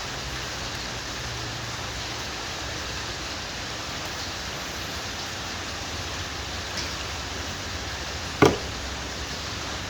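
Steady even hiss of background noise, with one sharp knock about eight and a half seconds in.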